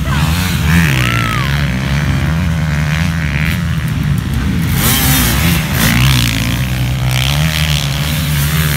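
Several off-road motorcycles racing past on a dirt track, a mix of engines revving, their pitch rising and falling as the riders accelerate and pass.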